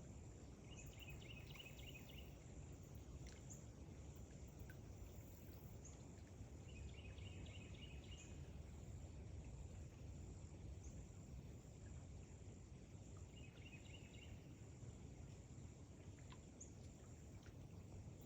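Near silence: faint outdoor ambience with a steady low rumble, in which a short pulsed chirping call sounds three times, about six seconds apart, and faint high ticks come every couple of seconds.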